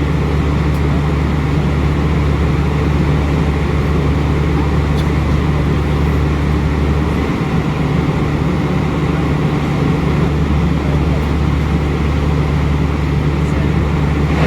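Steady cabin noise of an Airbus A320-200 in flight: an even rush of air with a constant low engine drone.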